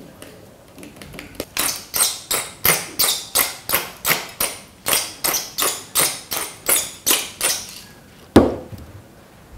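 Wooden pepper mill being twisted to grind pepper: a run of sharp clicks, about three a second, lasting several seconds. A single louder knock comes near the end.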